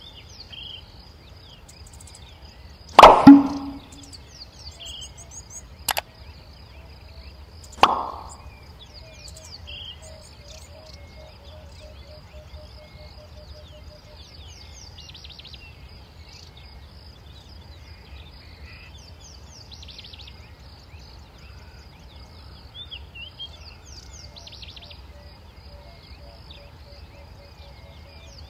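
Quiet bush ambience at dawn: scattered bird chirps and trills over a steady high hiss, with a low call pulsing several times a second. It is broken by a loud knock about three seconds in, a sharp click at six seconds and another thump near eight seconds.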